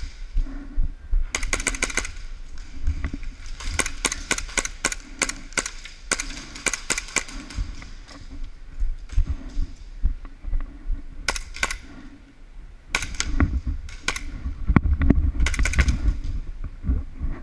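Airsoft guns firing in rapid bursts of sharp clacks, in several volleys with short pauses between them.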